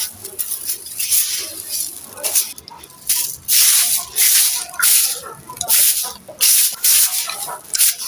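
Dry, gritty sand cement with small stones being crumbled and scraped. It comes as a string of short, loud, rasping strokes, about one or two a second, with brief pauses between them.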